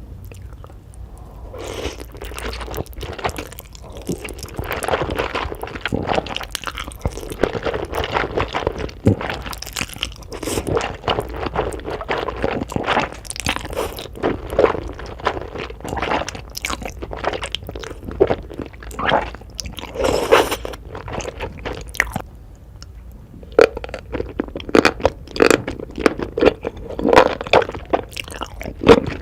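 Close-miked chewing and biting of Korean instant noodles, a dense run of wet mouth sounds and bites, easing off briefly a little past the three-quarter mark before resuming.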